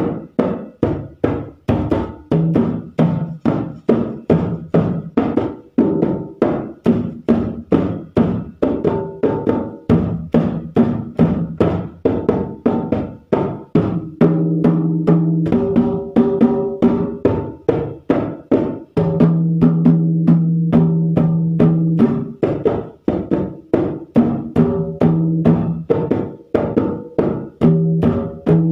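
A dholak, the two-headed barrel drum, played by hand in a steady, fast rhythm of several strokes a second, with open strokes on the bass head ringing a low tone that is held at times between the sharper slaps.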